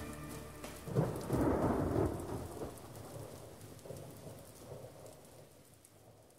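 A thunderclap about a second in, rumbling and dying slowly away with the hiss of rain, as the last notes of a song fade out.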